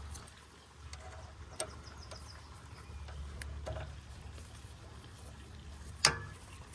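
Hand tools and metal parts being handled while the pump's drain bolt is refitted: a few light clicks and taps, then one sharp knock about six seconds in.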